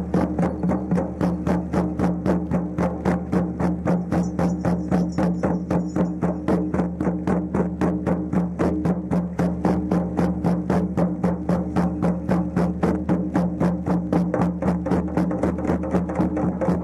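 Many shamanic frame drums beaten together in a steady, fast unison rhythm, about five beats a second, over a continuous low hum.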